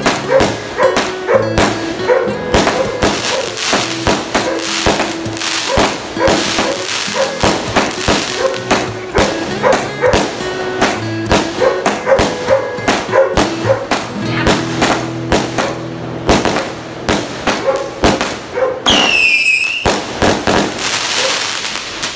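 Aerial fireworks bursting and crackling in rapid sharp cracks over background music, with a falling whistle near the end.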